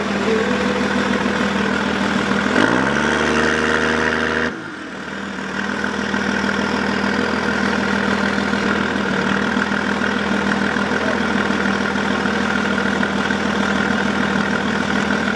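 Diesel pickup truck engine idling through a large exhaust tip. About two and a half seconds in the pitch rises and holds, then cuts off sharply about two seconds later before the steady idle goes on.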